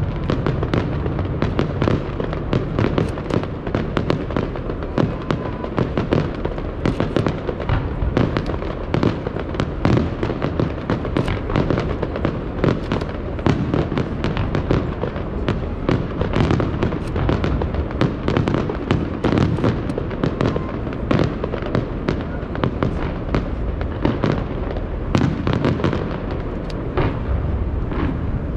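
Aerial fireworks display: shells bursting in a rapid, unbroken run of bangs and crackles, several a second, over a steady low rumble.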